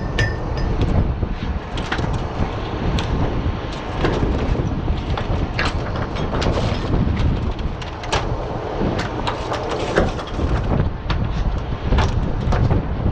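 Oyster shells knocking and clattering on a wooden culling board as a dredged catch is sorted by hand, sharp irregular clicks over a steady rumble of the dredge boat and wind.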